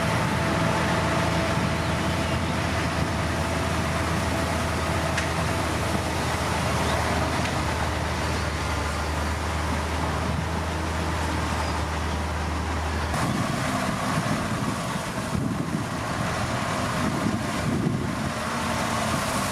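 Diesel engines of heavy earthmoving machinery running, a steady low drone that changes suddenly about thirteen seconds in to a rougher, noisier engine sound.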